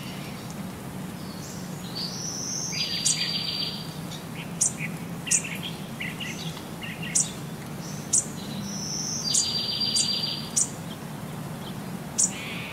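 High, bird-like chirps and short sharp whistled sweeps with a buzzing trill, the same sequence coming round twice, over a steady low hum.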